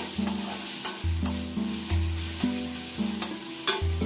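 A metal spatula scrapes and taps in a steel kadai as tomatoes and onions sizzle in hot oil. Background music with a repeating bass line plays over it.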